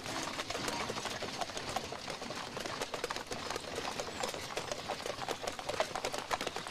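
Horse-drawn carriage on cobblestones: hooves clip-clopping and the carriage clattering in a dense, steady run of knocks. A held note of background music ends just after the start.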